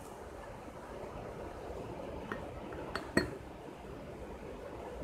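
A few light clinks of hard makeup tools and containers as golden eyeshadow is taken from a palette into a powder mix: two small ones a little after two seconds in, then a louder one just after three, over a faint steady hiss.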